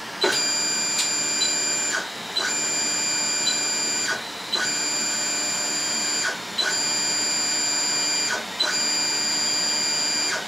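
Anycubic Mega-S's Z-axis stepper motors whining steadily as the gantry is raised at fast speed. The motors run in five bursts of just under two seconds each, with short pauses between them and a brief tick as each one starts.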